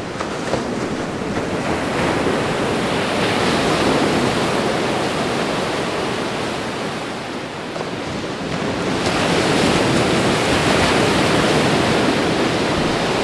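Steady rushing noise of surf and waves, swelling about two seconds in and again from about nine seconds in.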